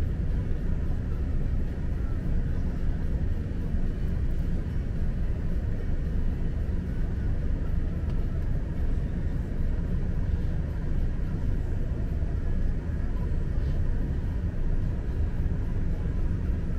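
Steady low rumble of a car heard from inside its cabin, with no sudden changes.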